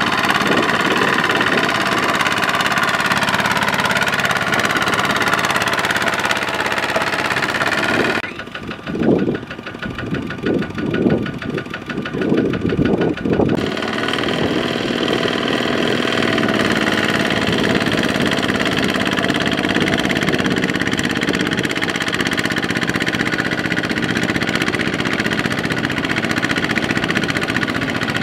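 A Kubota ZT155 power tiller's single-cylinder diesel engine running steadily under load as it drags a loaded trailer through mud. About eight seconds in, the sound turns quieter and duller for roughly five seconds, with irregular thumps, before the steady engine noise returns.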